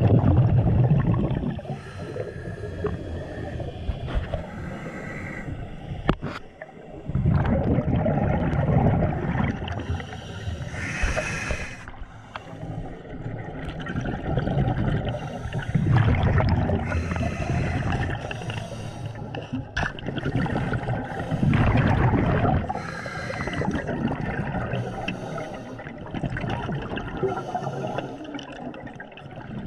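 Scuba diver breathing through a regulator underwater: a hissing inhale, then a long rumbling rush of exhaled bubbles, repeating every several seconds.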